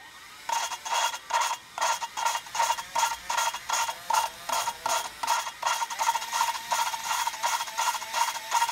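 Exhaust valve being lapped into its seat in a 2.2L turbo cylinder head: the valve is spun against the seat with valve grinding compound, making a rhythmic grinding scrape that pulses about three times a second. The valve is being lapped to seal a pitted exhaust seat.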